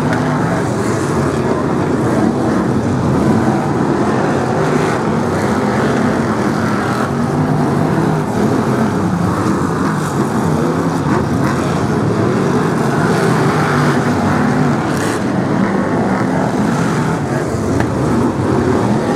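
A pack of Brisca F1 stock cars racing, their V8 engines running loud and continuous, the pitch rising and falling as the cars lap and pass.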